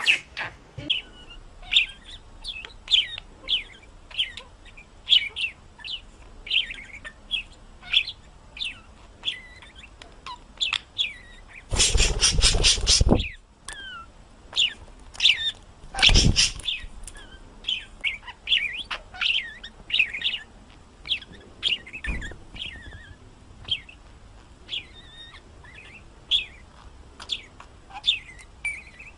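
A pet bird chirping over and over in short falling chirps, with two louder harsh noisy bursts, one about twelve seconds in lasting around a second and one about sixteen seconds in.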